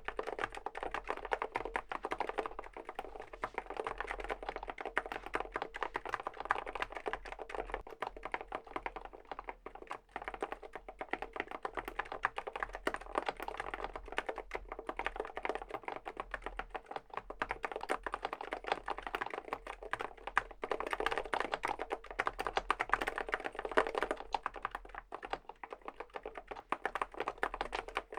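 Continuous fast typing on a Groovestone (Mstone) GS-series mechanical keyboard fitted with silent (low-noise) Hanui switches: many keystrokes a second in a dense, unbroken run.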